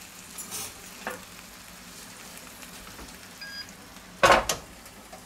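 Chicken legs sizzling in the preheated baking tray of a Tefal OptiGrill Elite contact grill. A little after four seconds in, the grill's metal lid comes down with a single sharp clunk.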